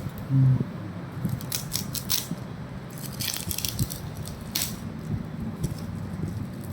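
Plastic packaging crinkling and rustling in several short bursts, as a new keyboard is unboxed, over a steady low hum. A short, loud low buzz sounds about half a second in.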